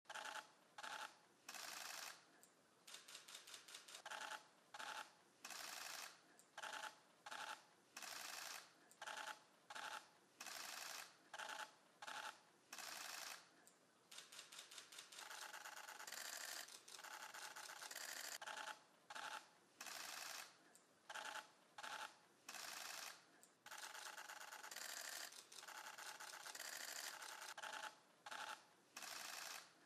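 Camera shutters firing in rapid bursts, one short burst after another with brief gaps, running on longer and unbroken about halfway through and again near the end.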